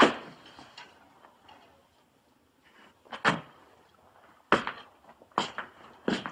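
Footsteps on a wooden floor: five slow, separate steps, the first the loudest, then a pause of about three seconds before four more steps.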